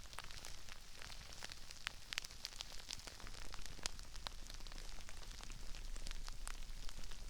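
Crispy rice crackling and popping: a dense, steady patter of many tiny snaps and crinkles.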